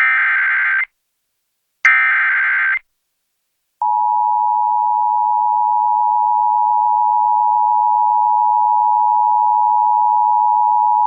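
Emergency Alert System SAME header: two data bursts of about a second each, a second apart, ending the header's three repeats. About four seconds in, the EAS attention signal starts: the steady two-tone alarm at 853 and 960 Hz, which announces the severe thunderstorm warning that follows.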